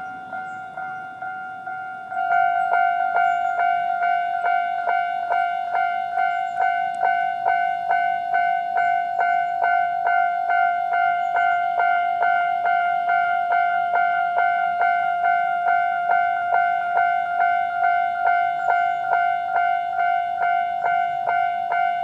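Japanese level-crossing electronic warning bell ringing its standard tone at a fast tempo, a repeated ding about two and a half times a second. It gets louder about two seconds in.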